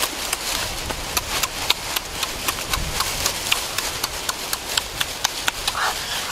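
Close-up chewing and lip-smacking of someone eating roasted turkey by hand: an irregular run of sharp mouth clicks, several a second.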